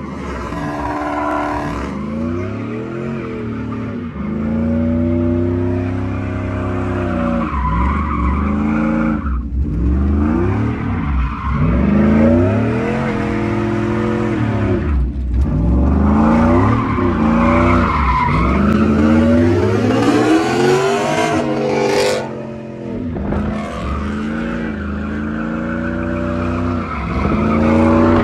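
Car engine revving up and down again and again with tires squealing: a car spinning donuts, its rear tires burning into smoke.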